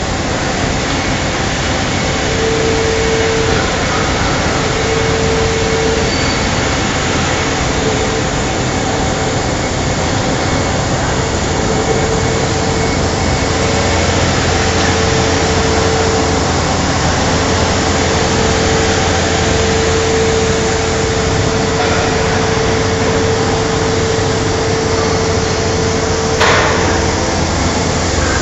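Steady industrial machine noise with a low hum and a whine that fades in and out, as of air-driven conveying and factory machinery running. A single sharp knock sounds near the end.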